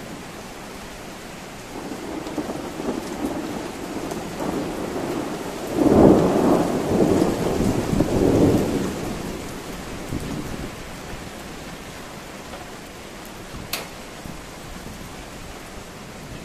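Thunder rolling during a sudden downpour, over the steady hiss of rain. The rumble builds over a few seconds, is loudest about six seconds in, and dies away over the next five.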